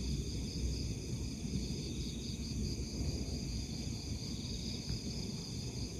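Crickets and other night insects trilling steadily in a high, pulsing chorus, over a low rumble.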